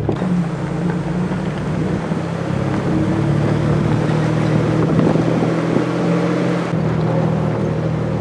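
Four-wheel-drive vehicle driving on a dirt trail: a steady engine drone over road and wind noise.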